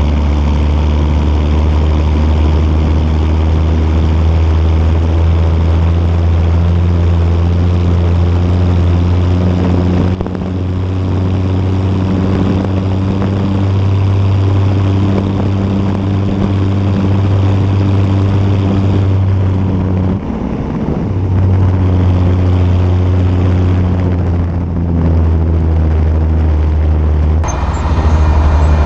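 John Deere 6510 tractor's diesel engine running steadily as the tractor drives along. The engine note drops briefly about twenty seconds in, and near the end the sound changes to the engine as heard inside the cab.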